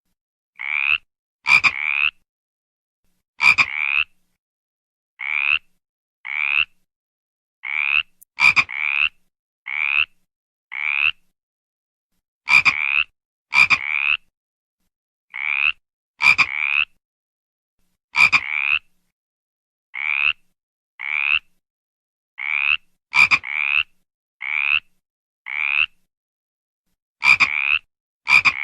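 A frog croaking in short calls, roughly one a second, often grouped in twos or threes. Each call is under half a second, rises slightly in pitch, and some open with a sharp click. The gaps between calls are completely silent, as in an edited recording.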